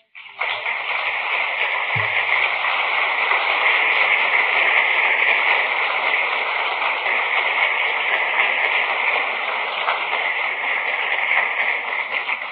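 Audience applauding, a dense even patter of many hands, with a single low thump about two seconds in. The applause dies away near the end.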